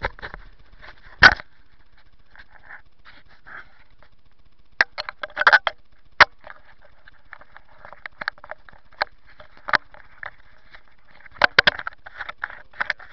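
Irregular sharp clicks and knocks with soft rustling between them, with no engine running: handling and rubbing noise on a helmet-mounted camera as its wearer moves about on straw bales and mud.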